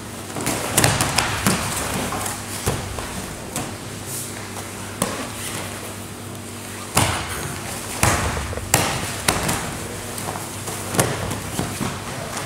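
Jiu-jitsu grapplers in gis thumping and slapping on the mat as they scramble: a series of irregular thuds and slaps with cloth rustling between them, over a steady low hum.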